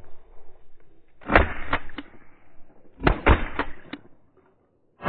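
Shotgun fire at ducks overhead: three quick volleys, each of two or three sharp shots a few tenths of a second apart, coming about every second and a half to two seconds.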